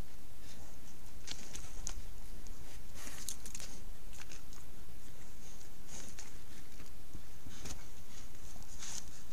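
A pronghorn moving right at the camera trap: irregular short scuffs and clicks close to the microphone, coming in small clusters every second or so, over a steady low rumble.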